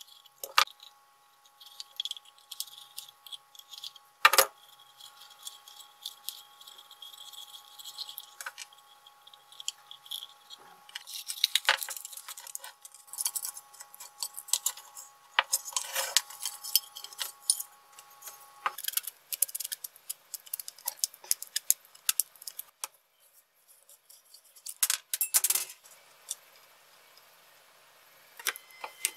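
Small metal parts and hand tools clicking and clinking as a chainsaw's sheet-metal switch box is taken apart with a pliers wrench and screwdriver, and a carbon brush with its spring is drawn out of the motor housing. The sound comes as scattered sharp clicks and short bursts of rattling.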